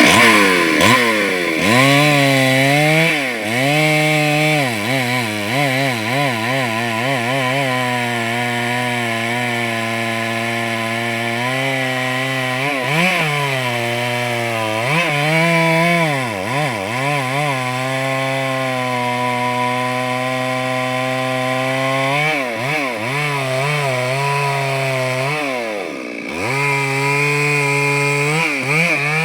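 Petrol chainsaw running hard through a tree, its engine note sagging sharply and climbing back again and again, with a deep drop near the end.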